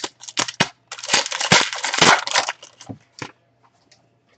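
Basketball card pack's wrapper crinkling and tearing as it is opened and handled, with a few sharp clicks. The crackling is densest from about one to two and a half seconds in, then dies away.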